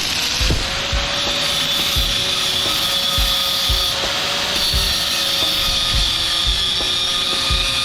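Handheld power tool running steadily on metal: a constant whine over a grinding hiss, with a regular low thumping about twice a second underneath.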